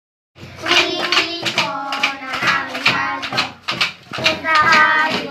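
Children singing a Christmas carol together, beating time on homemade percussion: a plastic tub struck with sticks and a plastic-bottle shaker. It starts suddenly about half a second in.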